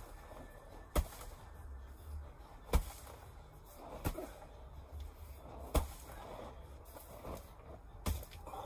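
Hands and forearms striking a homemade wooden-man training dummy, its wooden arms and padded targets strapped to a tree: five sharp knocks, irregularly spaced.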